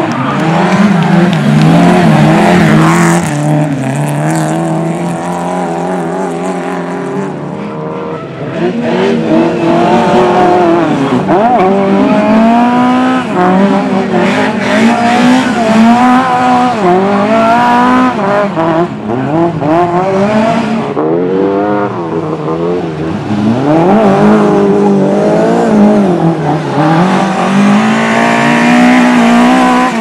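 Lada saloon race cars' four-cylinder engines revving hard as they slide through dirt-track corners, several cars in turn, the engine pitch climbing and dropping over and over with the throttle and gear changes.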